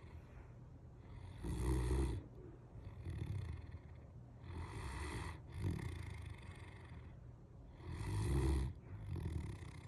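A Great Dane snoring in its sleep: slow, noisy snoring breaths in a steady rhythm, a louder snore about every three seconds with softer breaths between.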